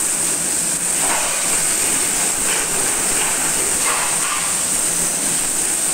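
Pressure-washer water jet spraying a motorcycle's engine and front wheel: a steady, even hiss.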